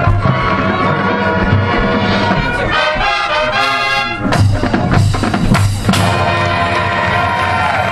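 Marching band playing: brass and drums together, with the brass sliding and wavering in pitch about three seconds in, then sharp hits from the full band and percussion between about four and six seconds before the brass settles back into held chords.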